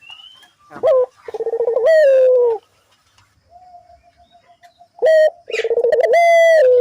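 A local puter dove cooing loudly. There are two long coos, about a second in and again near the end; each opens with a rolling trill and ends in a held note that falls away. A soft, beaded coo comes in between.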